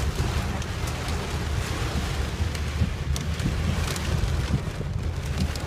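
Heavy, wind-driven rain pelting a car, with scattered sharp ticks of drops over a steady low rumble.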